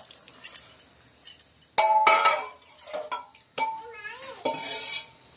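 Metal spoon clinking and scraping against a steel kadai while vegetables and hot water for upma are stirred. The strongest clink comes about two seconds in and rings briefly.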